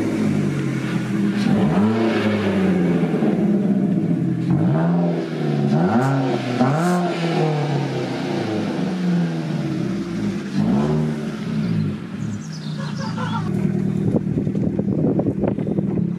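Vauxhall Corsa engine running through a straight-piped exhaust, its mid-box silencer cut out and replaced with a plain length of pipe. It is revved in about four short blips, then settles to a steadier low run.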